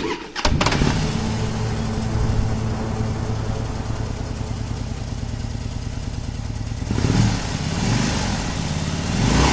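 Motorcycle engine sound, starting with a few sharp clicks and then running steadily. In the last few seconds it is revved up and down several times.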